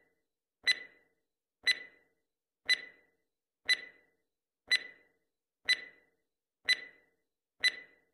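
Stopwatch countdown tick sound effect: a sharp, slightly ringing tick once every second, eight in all.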